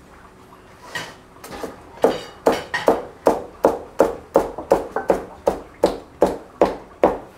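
A large broad-bladed knife chopping a freshly baked pide into slices, the blade striking the wooden counter in sharp, even strokes about two to three times a second. It starts with a couple of lighter cuts and settles into a steady rhythm about two seconds in.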